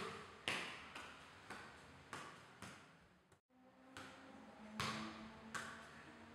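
A football being juggled with bare feet: faint, sharp kicks about twice a second, each trailing off in a short echo, with a brief break a little past halfway.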